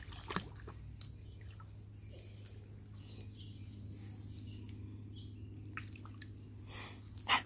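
Shallow creek water lapping and lightly splashing around a small child's feet as he wades, with faint bird chirps in the middle and a sharp click near the end.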